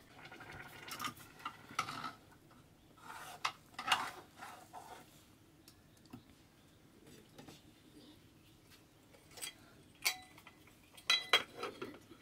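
Metal utensils scraping and clinking against an aluminium cooking pot, with several sharp ringing metal clinks a little before the end.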